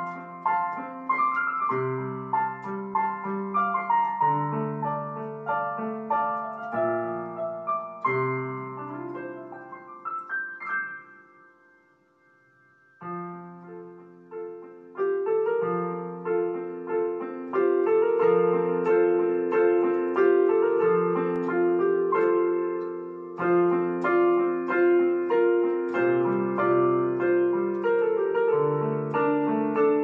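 Background piano music, a slow line of single notes over low chords. It dies away almost to nothing about twelve seconds in, then comes back, fuller and louder, from about fifteen seconds in.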